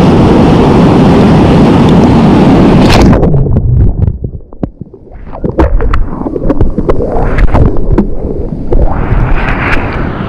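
Loud rushing of water and wind over the microphone of a GoPro moving through surf, cutting off suddenly about three seconds in. Then seawater sloshes, splashes and gurgles around the camera held at the surface in breaking whitewater, with scattered sharp splashes.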